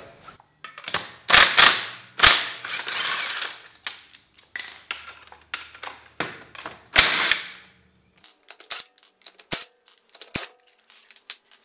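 A cordless impact wrench undoes a car's wheel nuts in several short bursts of hammering, the longest about two and a half seconds in and the loudest about seven seconds in. Sharp clicks and taps of nuts and tools being handled follow in the last few seconds.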